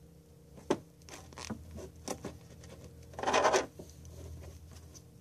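A plastic zip tie pulled tight through its ratchet: a short zip about three seconds in, the loudest sound here, after a few light clicks and handling noises.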